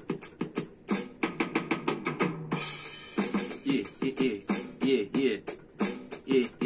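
Donner DEK-610 electronic keyboard playing its built-in drum beat through its own speakers, fast, even drum hits, with keyboard notes played over it. The hits let up briefly about two and a half seconds in.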